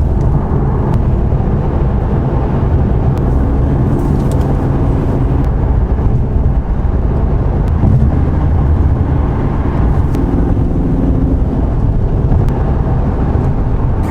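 Steady road and engine noise inside a Ford Mustang's cabin while cruising on the highway: a constant low rumble of tyres and drivetrain, with a few faint clicks.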